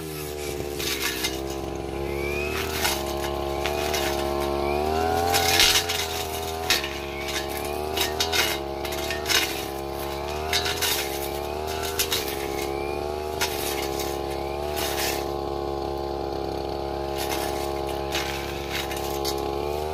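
Stihl brush cutter engine running at high revs, its pitch dropping and climbing again every few seconds as the blade bites into brush, with frequent short sharp hits and scrapes from the blade striking grass and woody stems.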